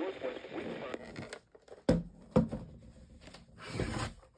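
Faint weather-radio hiss and voice from the Kaito Voyager KA500 cut off about a second in as the set is switched off. Then two sharp knocks, about half a second apart, as the radio is handled on a wooden tabletop, and a brief scrape near the end.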